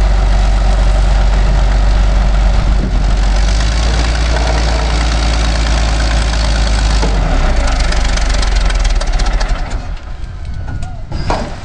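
Caterpillar 988 wheel loader's diesel engine running hard and steady, then dropping away about ten seconds in.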